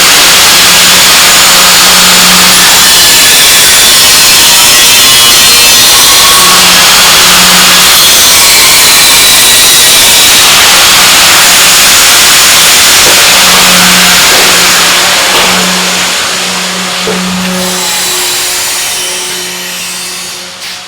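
A loud machine running steadily, with an on-and-off low hum under a dense hiss, dying down over the last few seconds.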